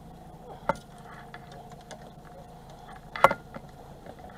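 Two sharp clicks, one about a second in and a louder one near three seconds with a couple of small follow-ups, over the steady low hum of the fishing boat's idling motor.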